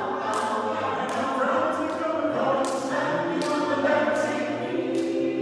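A cappella vocal group of men and women singing a pop song in close harmony, with no instruments, and a sharp tick on roughly every beat.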